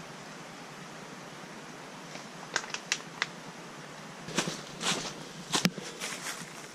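A few sharp plastic clicks as a water bottle is handled, then footsteps crunching through dry fallen leaves.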